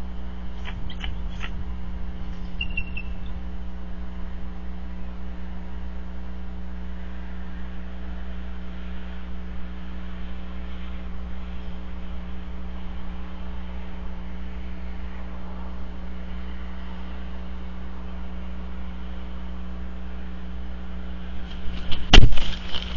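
Steady electrical hum with hiss on an outdoor camera's audio feed. A few faint clicks and a short high chirp come in the first three seconds, and a loud burst of knocks about 22 seconds in.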